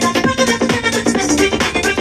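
Electronic dance music with a steady kick-drum beat, played from a phone through small USB-powered desktop speakers for a sound test.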